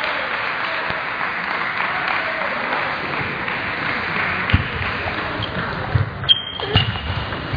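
Table tennis ball clicking off bats and table in a serve and rally, about five sharp hits starting about four and a half seconds in, with a couple of short squeaks among them, over the steady murmur of a large sports hall.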